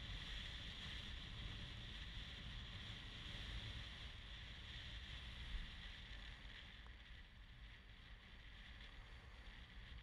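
Faint, steady wind rumble on the microphone with an even high hiss of wind and water, from a camera riding on a windfoil rig moving across choppy water.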